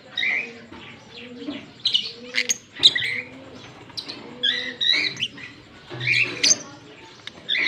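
Fischer's lovebirds chirping, a run of short, sharp, high calls at irregular intervals, with a low, level tone repeating beneath them.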